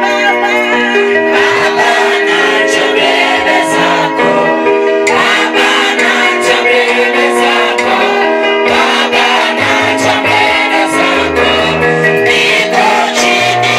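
Gospel worship music: sung voices over sustained keyboard chords, with steady percussion and a bass line coming in during the second half.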